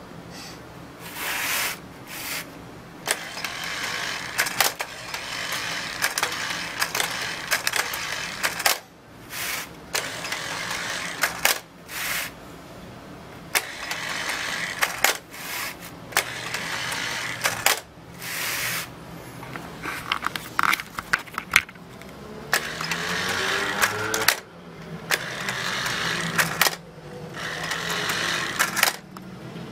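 LEGO-built useless machine: the plastic lever switch clicks as it is flipped, then a small electric motor and gears whir while the arm pushes the switch back off, over and over with short pauses between. Near the end the gear whine is louder and rises and falls in pitch.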